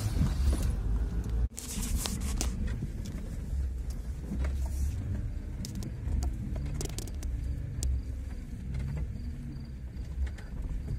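Low, steady engine and drivetrain rumble of an off-road vehicle crawling along a rough dirt track, with scattered knocks and rattles from the bumps. The sound cuts out briefly about a second and a half in.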